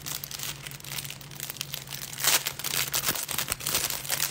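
Irregular crinkling and rustling, like something crisp being handled, with a louder crackle about two seconds in, over a steady low hum.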